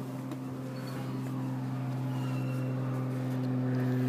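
Airplane passing overhead: a steady low engine drone that grows louder throughout.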